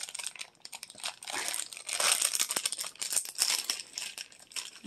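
Shiny plastic blind-bag wrapper of a Hot Wheels Mystery Models pack being opened, crinkling and crackling in repeated bursts as it is pulled apart and handled.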